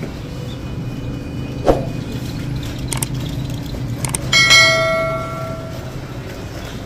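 Subscribe-button sound effect: a few sharp mouse clicks, then a bell ding about four seconds in that rings and fades over about a second and a half. A steady low hum runs underneath.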